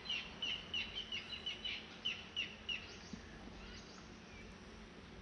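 A bird chirping: a run of short, high chirps, about three a second, that stops about three seconds in, over a faint steady hiss.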